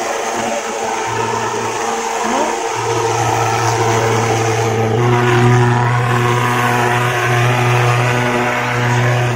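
Pulse-jet thermal fogging machine running with a loud, steady buzzing drone while it blows out insecticide fog. The drone briefly dips in the first few seconds, then grows louder and shifts slightly in tone about halfway through.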